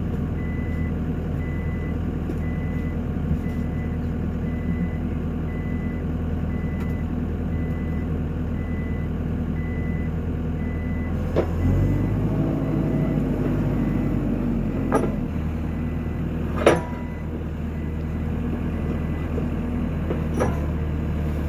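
New Holland skid steer's diesel engine running, with its reversing alarm beeping over and over for about the first half. Then the engine note changes and a few sharp clunks sound, the loudest about three-quarters of the way through.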